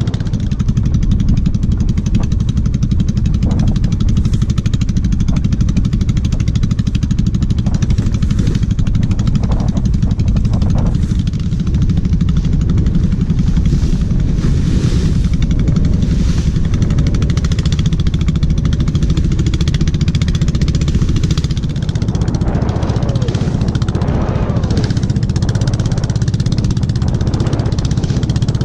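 Small wooden motorboat's engine running steadily at cruising speed, with water splashing off the hull.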